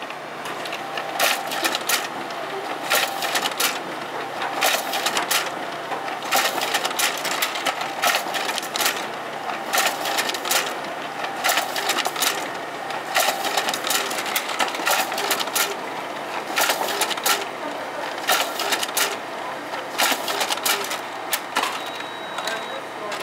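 Canon imageRUNNER ADVANCE colour copier printing multiple sets into its inner finisher: a steady mechanical running with frequent sharp clicks as sheets are fed and ejected and the finisher tray offsets each collated set.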